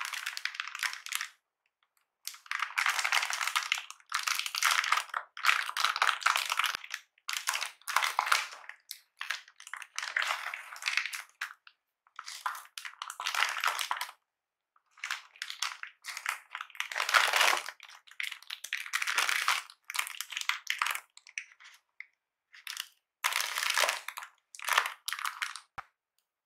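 Packaging being handled: plastic wrap crinkling and a fabric sleeve rustling, in a string of short bursts with brief silences between.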